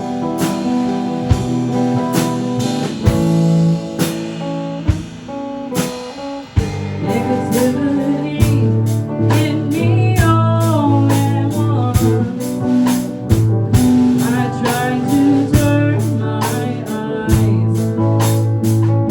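A band playing a blues-rock song live: guitar, drum kit and singing. The drumming is sparse at first, then becomes busy and steady about six seconds in.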